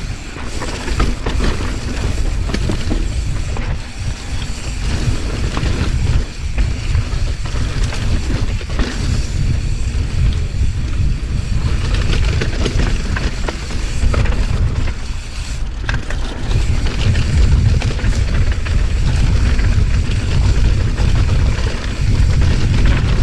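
Wind rushing and buffeting over the microphone while a mountain bike descends a dirt trail at speed, with tyre noise and the bike rattling and clattering over rough ground.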